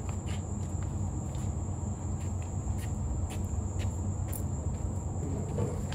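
Crickets trilling steadily in a high, unbroken drone over a low, steady hum, with a few light clicks and taps scattered through.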